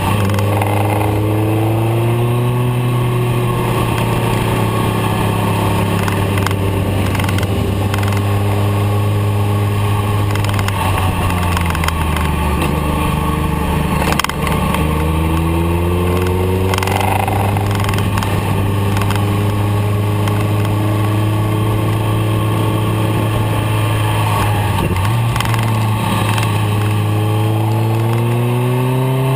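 BMW K1300R's inline-four engine heard from the rider's seat, its pitch rising and falling as the throttle is rolled on and off through the bends, dropping low in the middle and climbing again near the end, over steady wind noise. One sharp click a little past halfway.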